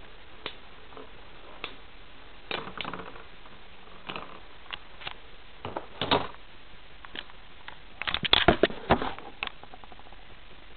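Plastic Beyblade spinning tops clicking and knocking against each other and the plastic stadium, with scattered sharp hits, one louder knock about six seconds in and a quick flurry of loud clatters about eight seconds in.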